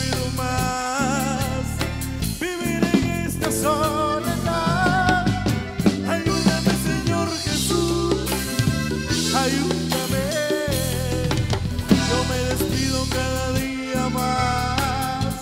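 Live band music in an instrumental break: acoustic guitar and electric bass over a drum beat, with a lead melody that wavers in vibrato.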